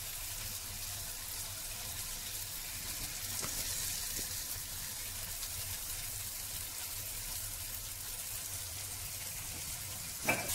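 Tomato masala and freshly added raw prawns sizzling steadily in a frying pan, with one short knock near the end.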